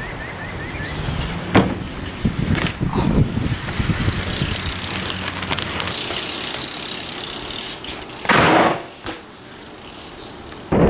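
BMX bike being ridden: tyres running on the ground and the bike rattling and knocking, with a louder clatter about eight and a half seconds in.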